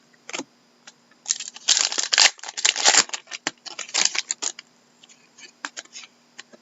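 Trading cards being handled and slid against each other: a run of rustling and sliding from about a second in for some three seconds, then a few scattered light clicks.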